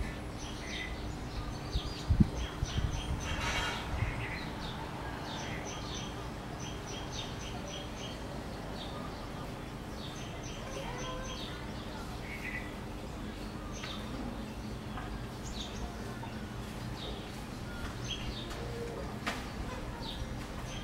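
Small birds chirping in quick series of short, evenly repeated high notes, over a steady outdoor background with a faint hum. A few low bumps stand out about two to four seconds in.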